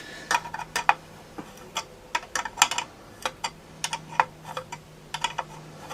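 Irregular sharp metallic clicks and clinks of a hand tool and nuts as the bar-cover nuts of a Homelite XL-12 chainsaw are done up.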